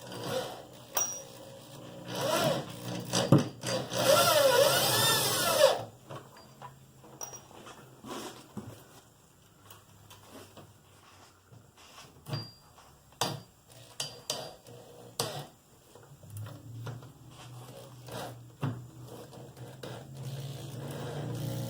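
Power drill driving mounting screws into a car's widebody side skirt, with two runs of the motor a few seconds in whose speed rises and falls. Scattered clicks and knocks follow.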